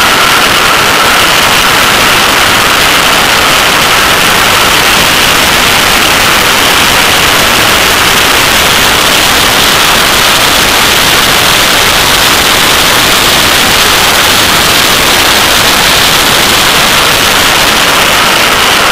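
Wind rushing over a microphone mounted outside a Porsche 911 at track speed: a loud, steady hiss that largely buries the car's engine and tyres.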